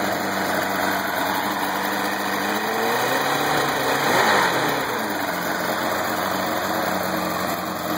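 1991 Force L-Drive engine running at idle while its idle is being set; about three seconds in, the speed rises briefly and settles back to a steady idle.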